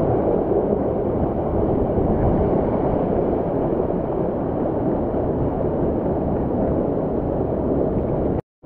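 Steady rush of a mountain torrent pouring through a canyon, one even roar of water broken by a brief silence near the end.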